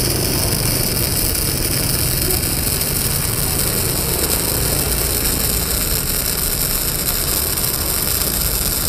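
Wintech MIG 250 welder's arc crackling steadily as a MIG bead is run on thin box-section steel, with the amperage and voltage turned down so the thin steel does not burn through.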